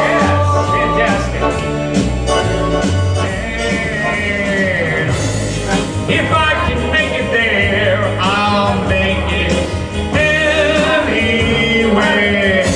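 Band music with a lead melody line, wavering in pitch, over steady bass and drums.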